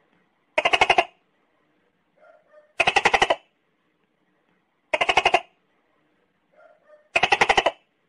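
Gecko calling: four short bursts of rapid clicking chirps, each about half a second long, coming roughly every two seconds. Fainter soft chirps fall between them.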